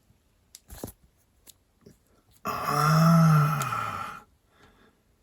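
A man's long wordless vocal sound, an 'ooh' or drawn-out hum about two and a half seconds in, rising then falling in pitch, after a few faint clicks of handling.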